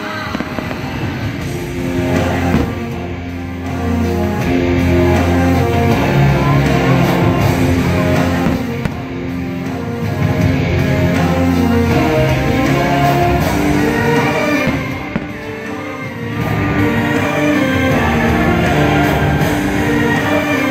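Fireworks show soundtrack music playing loudly, easing off briefly three times.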